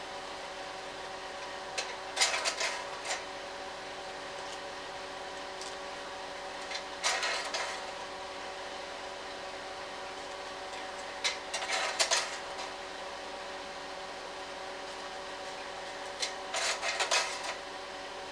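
Slide projector's cooling fan humming steadily, with a clattering mechanical clack four times, every four to five seconds, as the projector changes to the next slide.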